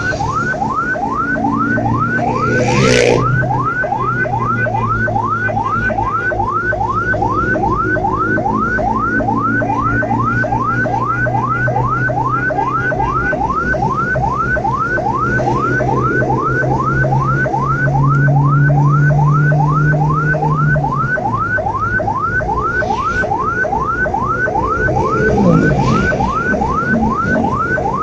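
Ambulance's electronic siren in fast yelp mode, a rising whoop repeating about three times a second, over engine and road noise. A short louder noise cuts in about three seconds in and again near the end.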